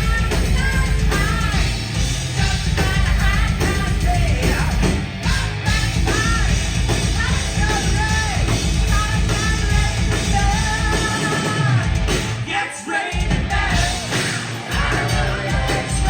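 Rock band playing with a lead singer: a sung melody over heavy bass and drums. The bass and drums drop out briefly about twelve seconds in, then come back.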